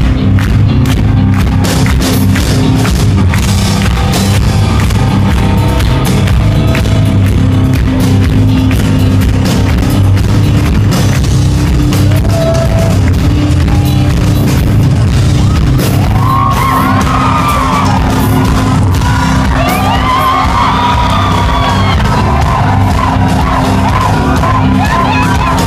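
Live hard rock band playing at full volume: drum kit, electric guitar and bass, loud and heavy in the low end. A singing voice comes in about sixteen seconds in and carries on over the band.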